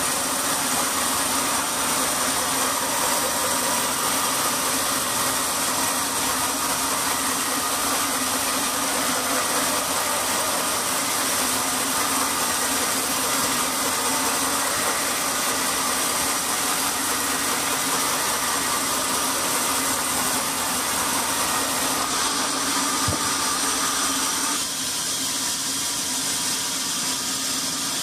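Band sawmill running and its blade cutting lengthwise through a large log: a steady mechanical noise with a constant hum under it. Near the end the sound drops a little and thins.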